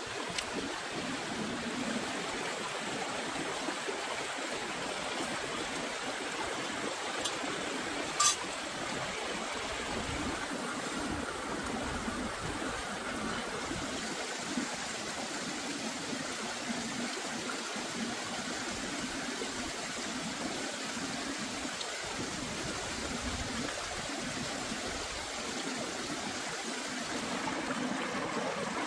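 Shallow stream running over rocks, a steady rushing and trickling. A single sharp click stands out about eight seconds in.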